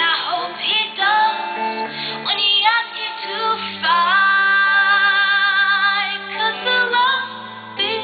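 A female vocalist singing live with instrumental backing, holding one long note with vibrato about four seconds in.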